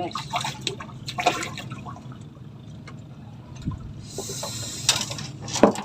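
Water splashing and trickling, with scattered knocks and clicks, and a steady rushing hiss from about four seconds in.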